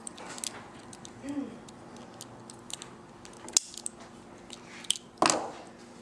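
Lego bricks being handled and unpegged from each other: a string of small, sharp plastic clicks and taps, the loudest about five seconds in.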